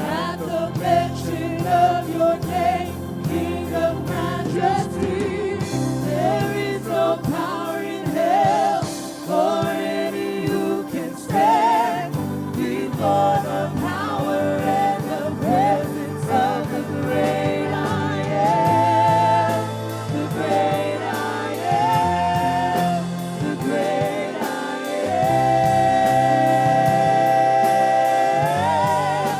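Gospel worship music: a singing voice with vibrato over sustained chords. It ends on a long held note that slides up at the end.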